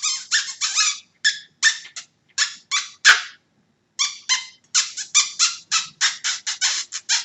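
An irregular run of short, high-pitched animal calls, several a second, with a pause of about a second roughly three seconds in.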